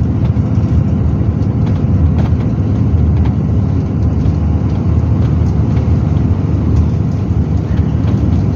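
Airport apron shuttle bus moving, its engine and road rumble heard from inside the cabin as a steady low drone, with a few light rattles.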